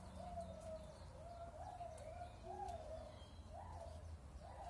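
Faint animal calls: a string of short wavering notes that glide up and down, one after another.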